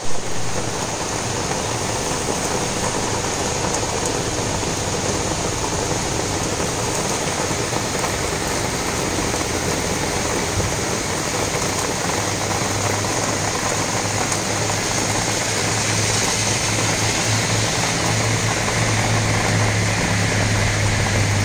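Heavy monsoon downpour: dense, steady rain falling on trees and a wet road. About halfway through, the low hum of a vehicle engine comes in under the rain and grows louder.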